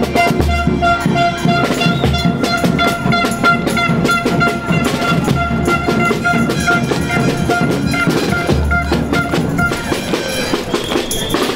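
School marching band playing: snare and bass drums beating steadily under a sustained melody of held notes.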